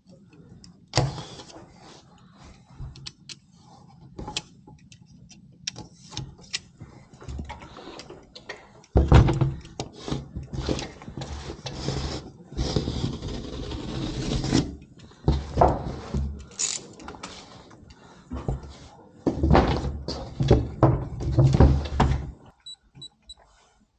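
Wall panels being handled and fitted by hand: scattered knocks, taps and clicks, with two longer, louder stretches of rubbing and thudding against the wall, one about nine seconds in and another near the end.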